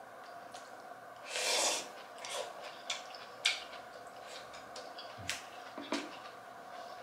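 Eating with chopsticks from a rice bowl: a short hissing rush, like a sharp intake of breath at the mouth, about a second and a half in, then several separate clicks of the chopsticks against the bowl.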